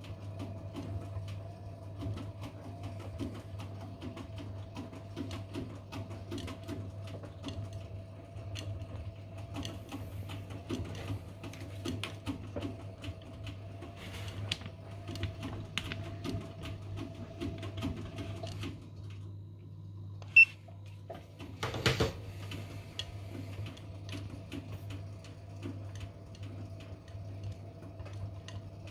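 Hotpoint front-loading washing machine in its main wash: the motor turns the drum and soapy water and laundry slosh and patter inside it. A low hum runs throughout. About nineteen seconds in the drum stops, there is a sharp click, then a louder knock, and the tumbling starts again.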